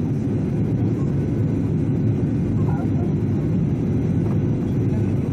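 Steady low cabin rumble of a Boeing 737-800 on final approach: its CFM56-7B engines and the rushing airflow heard from a window seat over the wing.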